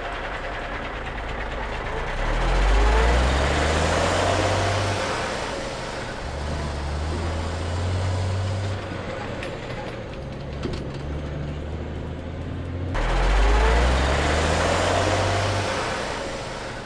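Cartoon sound effect of a truck engine revving up in rising steps, as if shifting up through the gears, with a rising whine over it. It happens twice, about two seconds in and again about thirteen seconds in, with the engine running steadily between.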